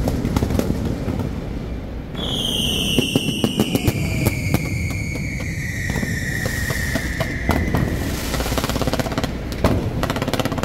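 Fireworks display going off: a dense run of crackles and bangs over a low rumble. A long whistle starts about two seconds in and slides slowly down in pitch until about eight seconds in.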